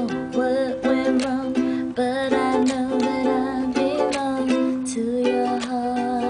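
Ukulele strummed in a steady rhythm, with a woman singing along in long held notes.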